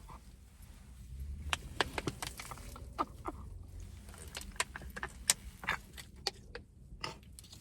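Scattered light clicks and clinks of small hard objects being handled, a dozen or more at uneven intervals, over a low steady rumble.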